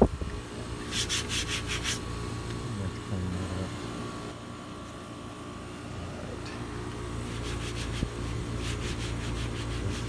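Quick rubbing strokes, about eight a second, in two short spells, one about a second in and one near the end, over the steady hum of running air-conditioning equipment.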